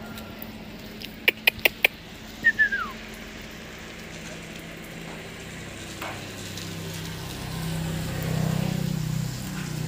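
Four sharp clicks in quick succession about a second in, then a short squeak falling in pitch; a low hum swells near the end.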